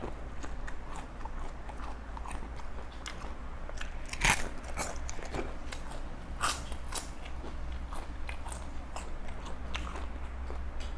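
A person eating spicy papaya salad close to the microphone, chewing with many small crunches. Two louder crunches come about four and six and a half seconds in.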